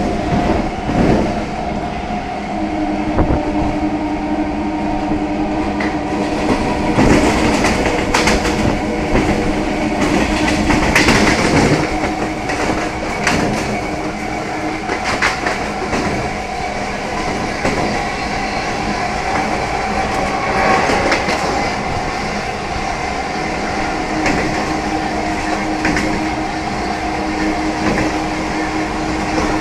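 Indian Railways EMU local train running along the track, its wheels knocking irregularly over rail joints, over a steady electric hum.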